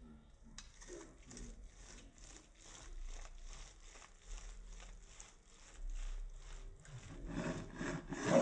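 A long carving knife sawing back and forth through a grilled tomahawk steak's charred crust on a wooden cutting board. The rasping strokes come about three a second and grow louder near the end.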